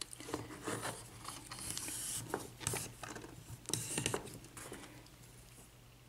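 Lock-picking tools scraping and clicking against a Sargent six-pin padlock held in a vise as a tension wrench and pick are fitted into its keyway: a string of short, irregular metal scrapes and taps that die away near the end.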